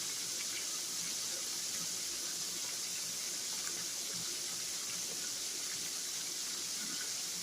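Floured liver frying in hot oil in a pan: a steady high sizzle.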